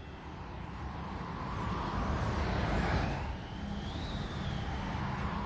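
A rumbling, whooshing sound effect that swells to its loudest about three seconds in and then eases off, with a faint whine rising and falling near the middle.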